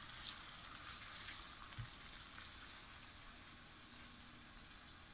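Faint, steady hiss of water poured from a steel kettle onto dried egg noodles in a plastic bowl, with one soft knock about two seconds in.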